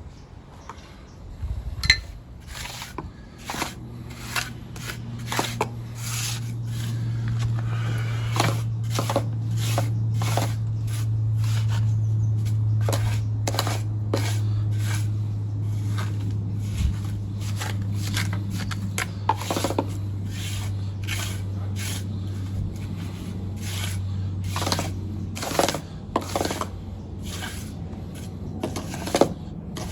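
Repeated short, irregular scraping and rubbing strokes, like a hand tool working gritty material, over a steady low hum that sets in about four seconds in and fades near the end.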